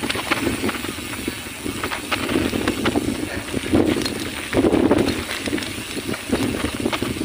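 Bicycle ridden over a bumpy dirt trail: the tyres rolling on soil and the bike rattling and clicking unevenly over the bumps.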